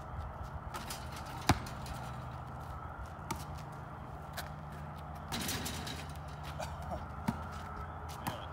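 A basketball passed back and forth through the air, each catch a sharp slap of hands on the ball, heard several times, the loudest about one and a half seconds in. A steady low hum lies underneath.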